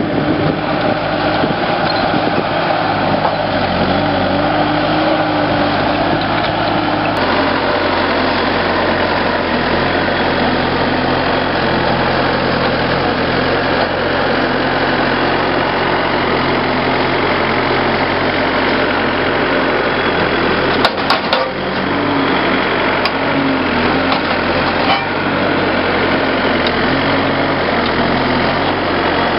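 Bobcat skid-steer loader's diesel engine running steadily while it works a stump puller and a grapple, pulling stumps and shaking soil from a root ball. The engine note shifts about seven seconds in, and a few short clicks come about three quarters of the way through.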